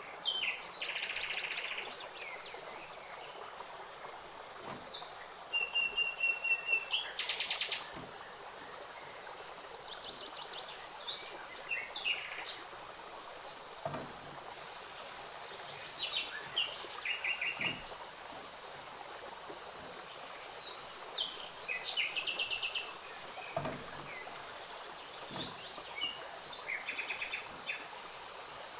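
Steady sizzle of sausage, onion and mushrooms frying in oil in a grill pan, with a few soft knocks of the spatula. Over it, birds chirp in short, repeated trilled phrases every few seconds.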